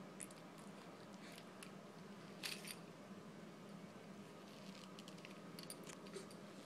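Faint wet clicks and smacks of a baby mouthing and gnawing on a plastic teething ring, with a slightly louder few about two and a half seconds in and a cluster near the end, over a low steady hum.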